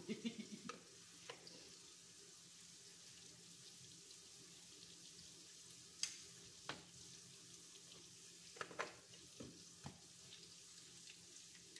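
Sweet potato fries frying in a skillet with a faint, steady sizzle. A few sharp clicks and taps scattered through it are metal tongs striking the pan as the fries are turned.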